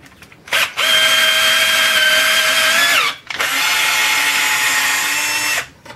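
Cordless drill spinning a Scotch-Brite abrasive against the head of a rusty bolt held in a vise, cleaning off surface rust: a short blip, then two steady runs of about two seconds each, the first winding down in pitch as it stops.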